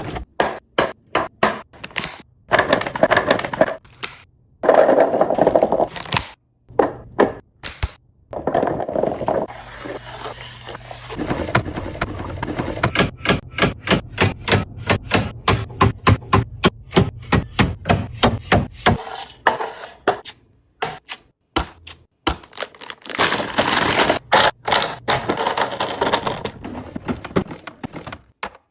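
Quick runs of clacks, taps and knocks from plastic and glass food containers being handled and set down while a fridge is restocked, broken by a few longer noisy stretches of a second or so.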